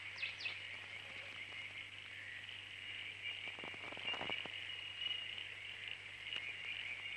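Bush ambience: a steady high-pitched insect drone, with two quick whistled bird calls at the very start and a few faint rustles about four seconds in.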